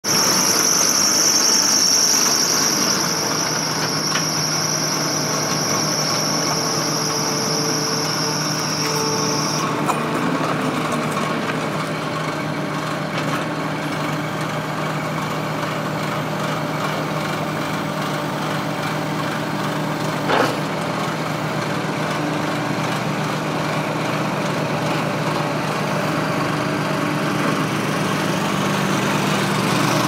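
Kubota SVL75 compact track loader's four-cylinder diesel engine running steadily as the machine drives and turns. A high steady whine sits over the engine for the first nine or ten seconds, then stops suddenly. There is a single knock about twenty seconds in.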